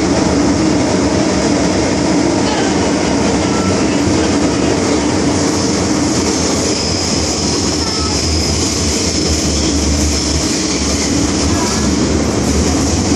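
Running noise of an MTR Island Line M-Train, heard from inside the carriage while it travels: a steady loud rumble and hiss of the train in motion. A thin high-pitched tone comes in for a few seconds midway.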